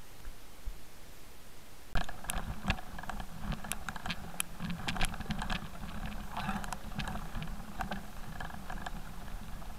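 Mountain bike riding over a rough, stony dirt trail: the tyres crunch on loose stones while the bike and camera mount rattle, with many sharp clicks and knocks over a steady rumble. It starts suddenly about two seconds in, after a quieter stretch.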